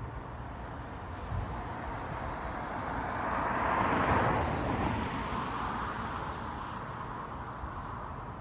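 A vehicle passes on a city road, its tyre noise swelling to a peak about four seconds in and then fading, over a steady low rumble of distant traffic.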